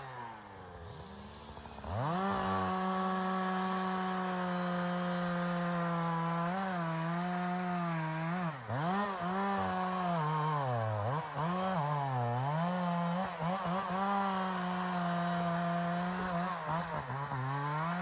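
Chainsaw engine idling low, then revved up about two seconds in and held at high revs, the pitch dipping again and again as it bogs down cutting through wood, and falling off near the end.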